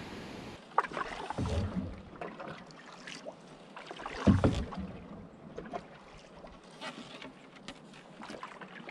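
A canoe being paddled through rapids: paddle strokes splashing in the water and knocking against the hull. A low thump comes about a second and a half in, and a louder one a little past the middle.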